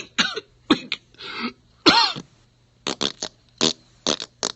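A man's put-on coughing fit: a rapid string of short coughs and throaty hacks.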